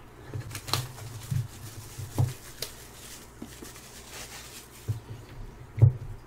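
Plastic shrink wrap being slit with a razor blade and peeled off a cardboard dash cam box, in scattered crinkles and rustles as the box is handled, with a short thump near the end.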